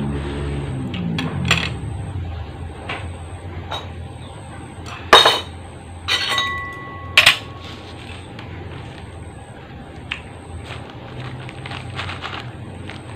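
Metal cutlery clinking and knocking against a bowl and dishes. A few scattered clicks, one loud clink about five seconds in, then a clink that rings on briefly and another sharp clink soon after.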